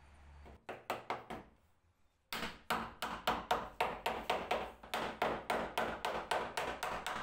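Hammer tapping a wooden strip down onto a glue-coated beam edge of an old wooden bench to seat it: four quick taps, a short pause, then a steady run of taps about four a second.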